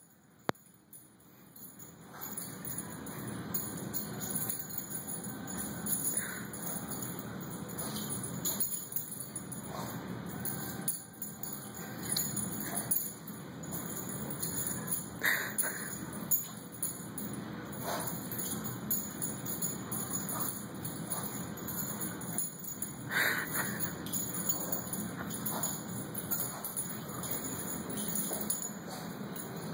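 Steady background noise, rising about two seconds in, with brief chime-like ringing tones now and then, the clearest two near the middle and about three-quarters through.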